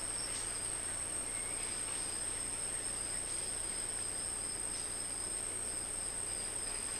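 A steady, high-pitched chorus of rainforest insects. It holds two unbroken tones and does not vary.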